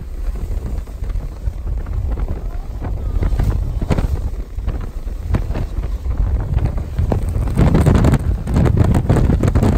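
Strong wind buffeting the phone's microphone: a loud, low rumbling rush in gusts, growing louder near the end.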